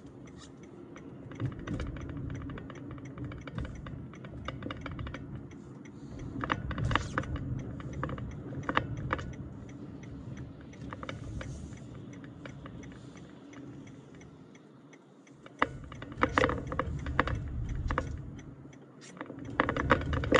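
Car driving over an icy, slushy road, heard from inside the cabin: a steady low road rumble with irregular ticking and clicking throughout. The clicking is busiest about a third of the way in and again near the end.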